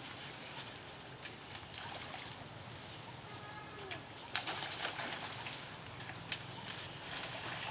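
Outdoor tree-canopy ambience: a steady background hiss with scattered short chirping calls, and a brief pitched call a little over three seconds in. From about four seconds on come several sharp rustles and snaps of branches and leaves as a monkey moves through the tree.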